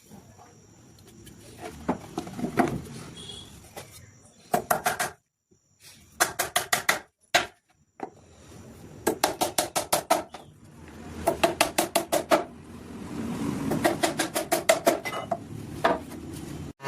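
Rapid clattering taps with a metallic ring, about seven or eight a second, in several short bursts, with sudden dead-silent gaps between some of them.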